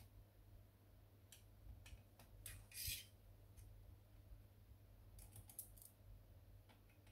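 Faint, scattered clicks and small knocks of plastic and metal parts being handled as a laser printer's fuser unit is taken apart, with a brief scrape about three seconds in and a quick run of clicks a little after five seconds.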